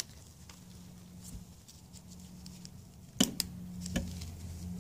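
Outboard drain screw and its sealing washer being handled by hand: a few faint ticks, then two sharp clicks about three seconds in and a smaller one a moment later, over a faint steady low hum.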